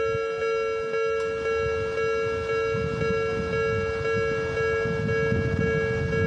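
Japanese level-crossing warning bell ringing steadily, its electronic tone pulsing about twice a second, while the low rumble of an approaching train builds from about halfway through.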